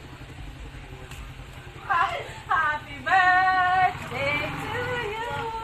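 A low steady rumble for the first two seconds, then women's voices break into singing about two seconds in: a quick falling note, then a long held high note, and more sung notes after it.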